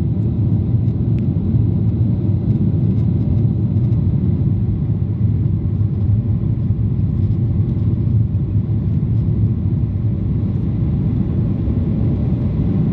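Steady low rumble inside the cabin of a Boeing 737-800 as it lands and rolls along the runway.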